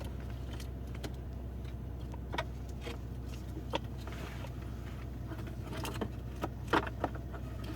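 Mercedes W221 S600's V12 idling with a steady low hum, under scattered sharp clicks and clinks of something being handled, the loudest near the end.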